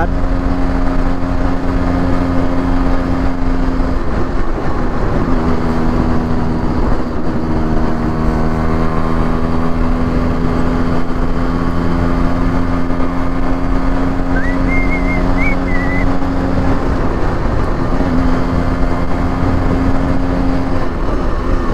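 Yamaha RX135's two-stroke single-cylinder engine running steadily at highway cruising speed, around 80 km/h. Its note dips briefly twice as the throttle eases, and a short high whistling tone is heard for a moment about two-thirds of the way through.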